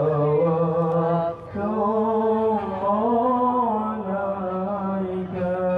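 A single man's voice chanting a sholawat unaccompanied, in long held notes that slide between pitches, with a short break about a second and a half in.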